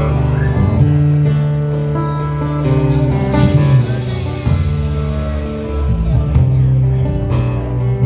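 Live band playing an instrumental intro, with guitar prominent over a steady beat.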